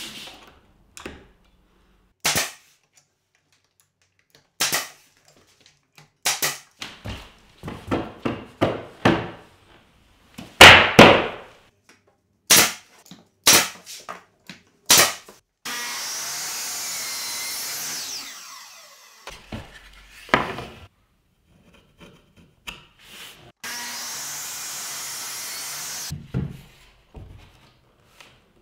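An 18-gauge brad nailer firing a string of sharp shots, some in quick runs, as trim casing is nailed up, with wood knocks in between. Twice there is a steady, even noise lasting about two seconds.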